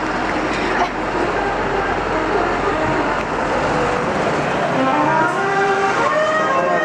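City street traffic: a steady noise of passing vehicles, with several pitched tones coming in over it from about five seconds in.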